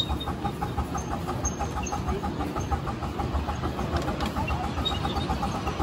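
Ride on a 7.25-inch gauge miniature railway train: a steady low rumble of the wheels rolling on the track, with a rapid, even ticking running through it.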